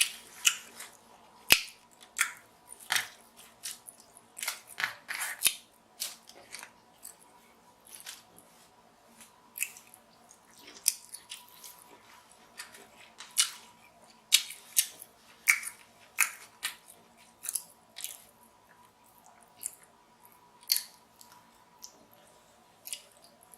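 Eating king crab legs: irregular sharp cracks and snips as the shells are broken and cut open, with chewing and lip smacking in between.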